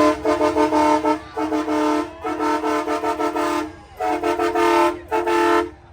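A two-tone horn honking in quick repeated blasts, grouped in about five bursts, cutting off sharply near the end.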